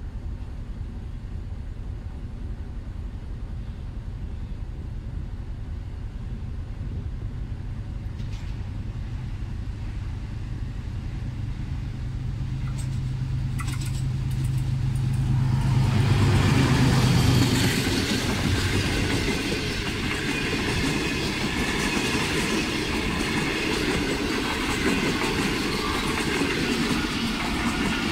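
Pakistan Railways GEU-20 diesel-electric locomotive approaching at speed, its low engine drone growing steadily louder and peaking about sixteen to seventeen seconds in as it passes. From then on, the passenger coaches run by with a loud, steady rushing of wheels on the rails.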